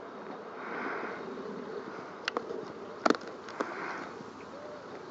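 Snow goose grazing, its bill tearing at grass in a few quick, sharp snaps, the loudest about three seconds in, over a steady background hum.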